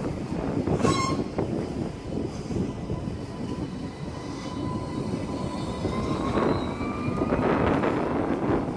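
Alstom Citadis X05 light-rail tram running along the track with a steady rumble. A thin whine holds one pitch through the middle, and a short ringing note comes about a second in.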